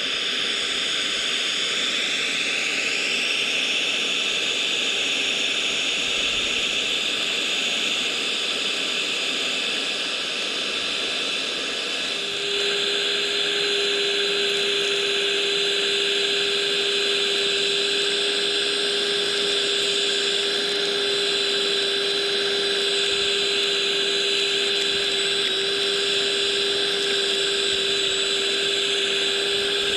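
Small electric suction fan of a scale RC suction-excavator attachment running steadily, a high whine with a rushing air sound. It rises in pitch over the first few seconds as it spins up, and about twelve seconds in a steady lower hum joins and it gets a little louder.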